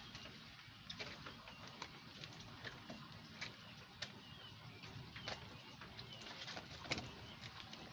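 Faint outdoor ambience: birds chirping now and then, with scattered sharp clicks and knocks.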